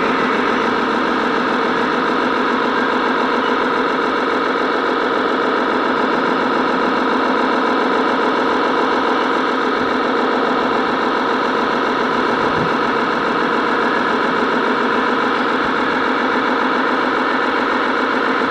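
Radio-controlled model truck running, heard from on board: a steady, unchanging engine-like drone.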